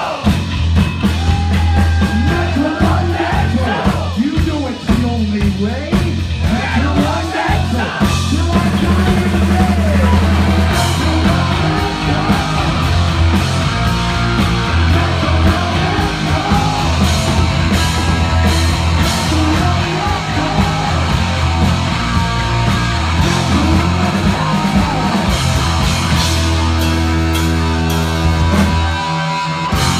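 Heavy metal band playing live and loud: distorted electric guitars, bass and drums. In the first eight seconds notes slide up and down, and then the full band comes in thicker and denser.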